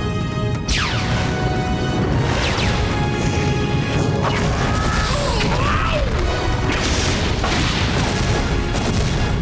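Battle sound effects of explosions and crashes over background music, with a falling whoosh near the start and sliding electronic tones around the middle.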